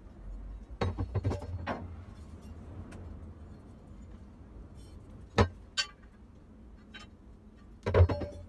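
Aluminum bow risers knocking and clinking against each other and the wooden workbench as they are handled: a cluster of light knocks about a second in, two sharp knocks a little past the middle, and the loudest knock near the end.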